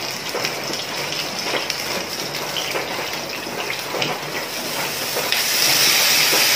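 Hot cooking oil sizzling in a frying pan with a whole chicken frying in it. The sizzle gets louder and hissier about five seconds in, as the chicken is lifted out of the oil.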